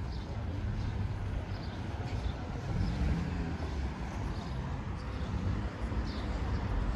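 City street ambience: a steady low rumble of traffic, with faint regular footsteps about twice a second.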